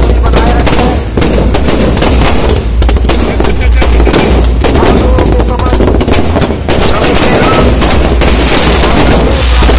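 Fireworks exploding at close range in a rapid, unbroken barrage of sharp bangs and crackles, several reports a second.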